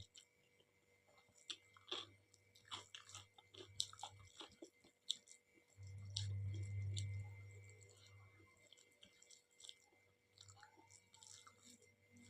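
Close-up mouth sounds of eating dal and rice: soft, wet chewing with scattered small clicks and smacks. A low hum swells for about two seconds roughly six seconds in.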